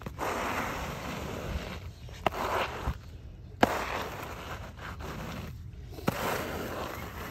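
Rubber squeegee pushing wet brush-in paving mortar across paving slabs in about four long scraping strokes, with a few sharp knocks between strokes as the blade is set back down on the slabs.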